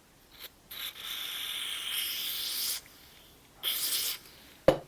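Aerosol can of water-dispersant spray lubricant hissing as it is sprayed into the worm and threads of an adjustable spanner to free it up: a brief puff, then a spray of about two seconds, then a shorter burst.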